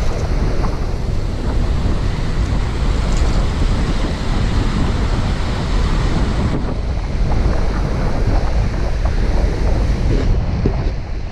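Strong wind buffeting the microphone with a steady low rumble, over waves breaking on a pebble shore.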